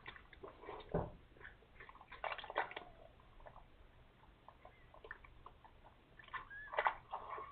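Mother cat and newborn kittens stirring in their blanket bedding: soft rustles and wet licking or mouthing sounds, a soft thump about a second in, and a short squeak near the end.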